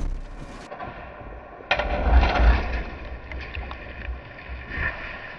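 A Volvo SUV driving off the road into a ditch. A sudden heavy thud and rumble as the car hits the ground, then dirt and debris clattering, with a second smaller thump near the end.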